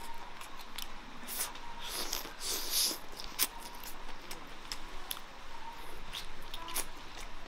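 Close-miked eating: lips smacking and teeth gnawing meat off a braised sweet-and-sour pork rib. An irregular string of short clicks and smacks, with longer, noisier sucking sounds about a second and a half in and again just before three seconds.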